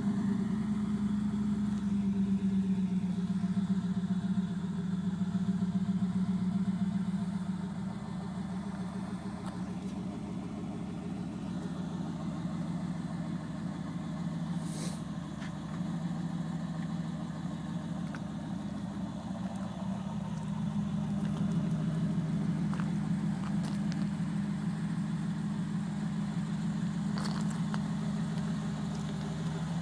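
1988 Pontiac Trans Am GTA's mostly stock 305 (5.0 L) TPI V8 idling steadily, heard at the tailpipe.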